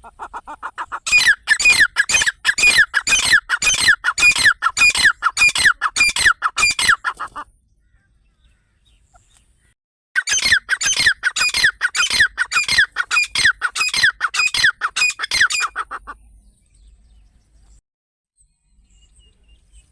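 A partridge (teetar) calling in two long bouts of rapid, evenly repeated harsh notes, each note falling in pitch. The first bout runs about seven seconds and the second starts after a pause of two or three seconds and runs about six.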